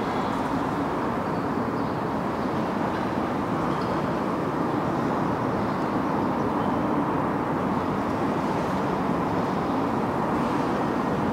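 Steady, unbroken background rumble with no pauses or distinct events.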